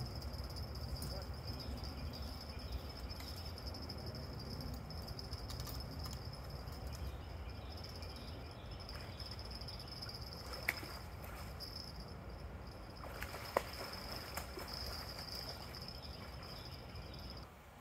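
A steady, unbroken high-pitched insect trill over a low background rumble, cutting off just before the end, with two sharp clicks in the second half.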